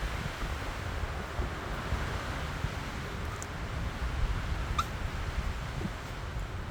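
Wind buffeting the microphone: a steady hiss over irregular low rumbling. One short, high, rising chirp comes a little past two-thirds of the way through.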